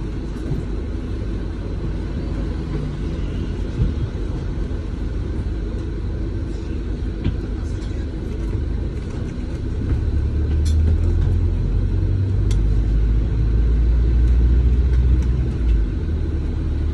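Low, steady rumble of a double-decker bus's engine and running gear heard from inside on the upper deck, growing louder for several seconds from about ten seconds in, with a few faint clicks and rattles.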